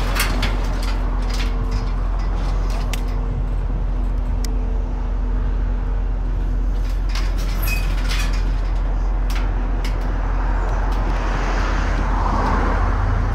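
Steady low rumble of motor vehicles or traffic, with a faint steady hum and scattered light clicks; a deeper engine note comes in near the end.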